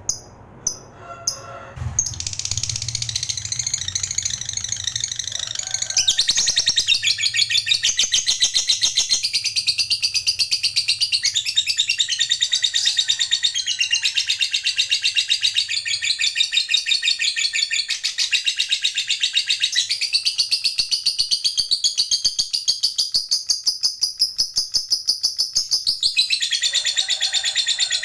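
Lovebird giving a few separate short chirps, then about two seconds in breaking into a long, unbroken chattering trill of very rapid repeated notes that shifts a little in pitch now and then. This is the 'ngekek panjang', the long chatter that keepers prize in fighter lovebirds.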